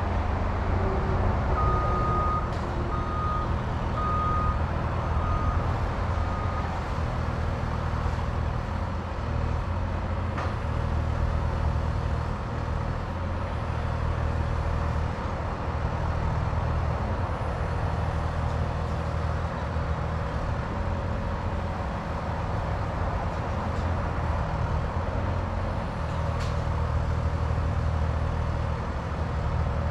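A heavy diesel engine runs steadily at a constant speed. Early on, a backup alarm beeps five times at about one-second intervals.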